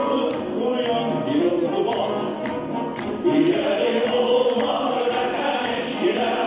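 Music with a group of voices singing, accompanying a circle dance.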